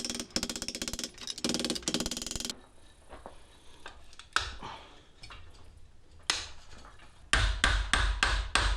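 Hammer blows on sheet metal, a steady run of sharp strikes about three a second starting near the end, as a steel sleeve is beaten into a bend around a pipe. It opens with a couple of seconds of rapid buzzing rattle, and there are a couple of single knocks in the quieter middle.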